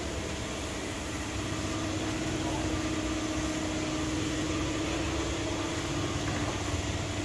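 A steady mechanical hum: a constant drone on one held tone over a low rumble.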